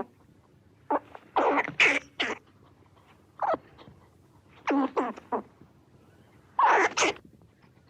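An animal's short, harsh calls, coming in clusters of two to four about every one and a half seconds, with quiet between them.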